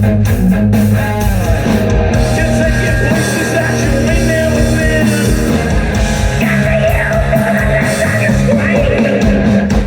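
Rock band playing an instrumental passage: distorted electric guitar, bass and drums.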